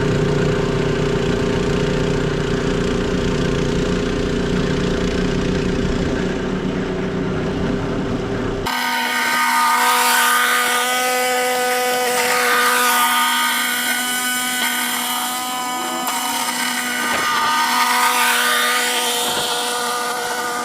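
A heavy engine running, then an abrupt cut about nine seconds in to a small engine running steadily with a high mechanical whine, as from a snow blower clearing snow.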